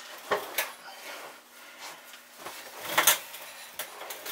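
A few knocks and clatters of metal parts and tools being handled on a workbench, the loudest about three seconds in.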